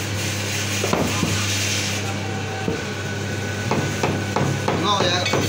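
Heavy butcher's cleaver chopping goat meat and bone on a wooden log chopping block: a series of sharp chops at uneven spacing, coming faster in the second half.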